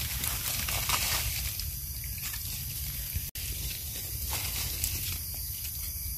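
Dry leaf litter rustling and crackling faintly as hands part it and pick mushrooms, over a steady high hiss of forest background. The sound cuts out for an instant about three seconds in.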